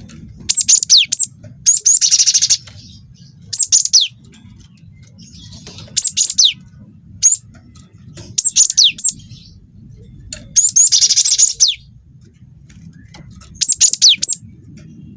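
Cinereous tit (gelatik batu) singing and calling: short phrases of two to four sharp whistled notes that drop steeply in pitch, repeated every second or two. Two longer, buzzy chattering bursts come about two seconds in and again about ten seconds in.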